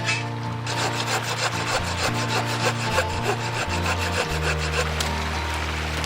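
Rhythmic scraping strokes on wood, fast and even, over background music with a steady bass line.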